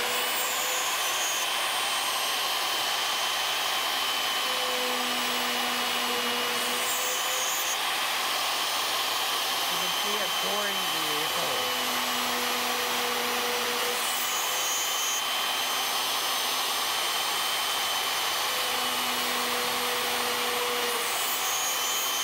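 CNC router spindle running at 16,000 RPM with a 1/8-inch end mill cutting a metal sheet: a steady high whine, with a lower cutting tone that comes and goes every few seconds as the tool moves along its path.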